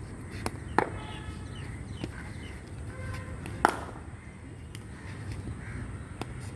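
Crows cawing a few times in the background, with two sharp knocks, one just under a second in and a louder one a little past the middle, from the cricket practice in the net.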